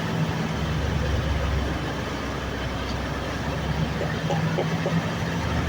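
Heavy diesel engine of construction machinery running steadily, a low, even drone with no change in speed.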